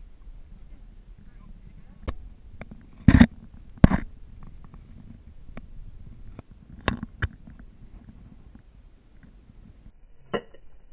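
Wind rumbling on the camera's microphone, with a few sharp knocks and bumps as the camera is handled and turned. The two loudest knocks come about three and four seconds in, with lighter ones around two and seven seconds.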